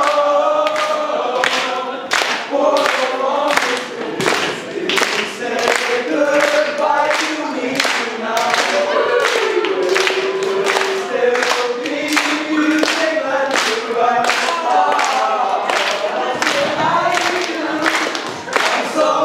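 Several voices singing together over steady, rhythmic hand claps, about two a second.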